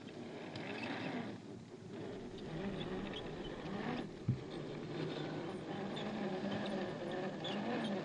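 Electric motor and gear train of an Axial SCX10 II RC crawler whining as it pushes through deep snow, the pitch rising and falling with the throttle. A short knock a little after four seconds in.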